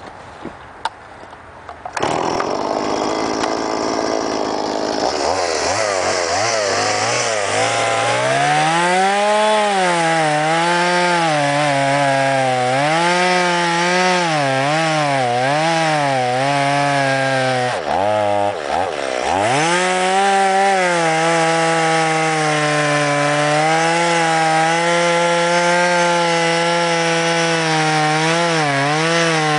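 Stihl MS 170 two-stroke chainsaw cutting alder logs. The saw comes in suddenly about two seconds in, and its engine note rises and falls as the chain bites and frees in the wood. It drops sharply once near the middle, then runs higher and steadier. The saw is new and still being broken in.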